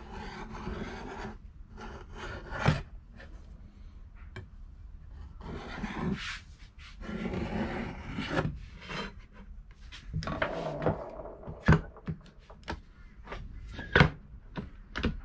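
Metal bar stock and tools handled on a workbench. There are stretches of scraping and rubbing as the bar is marked out and shifted, then a run of sharp clicks about twice a second near the end as a quick-release bar clamp is squeezed tight.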